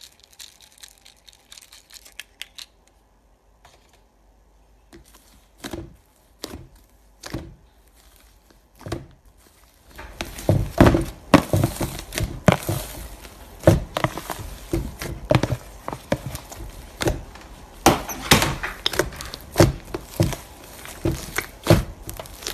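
Pink fluffy slime being squeezed and stretched by fingers, with sticky crackling and popping as air pockets in it burst. The first half is quiet, with faint ticks and a few separate squishes; about halfway through the sound turns into dense, loud crackling.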